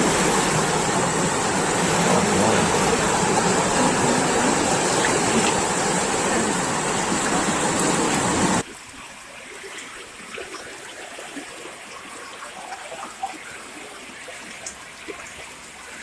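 Rushing floodwater: a loud, steady rush of water noise that drops abruptly about eight and a half seconds in to a quieter, steady rush of fast-flowing muddy floodwater, with a few faint splashes.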